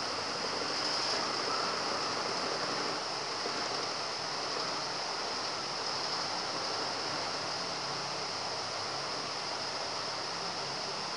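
Rain falling outside, a steady even hiss.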